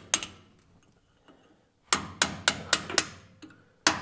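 Hammer striking a chisel held against a trailer axle's spindle nut, bending a lock-washer tang over onto a flat of the nut to lock it. Sharp metallic strikes: one, a pause, then a quick run of about four a second.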